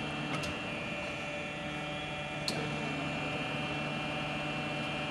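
Steady hum of a running TOS BHU 25 cylindrical grinder, made of several steady tones, with a light click just after the start and a sharper click about two and a half seconds in.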